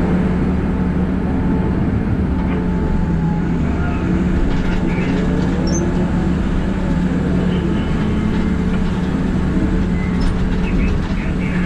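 Steady drone of a Liebherr R 9350 mining excavator's diesel engine and hydraulics, heard from inside the operator's cab, with a strong low hum throughout as the machine dumps into a haul truck and swings back.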